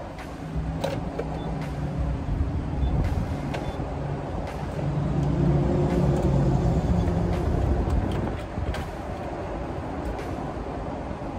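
A steady low motor hum that swells between about four and eight seconds in, with scattered light clicks and knocks as a gas pump nozzle is handled and pushed into a car's filler neck.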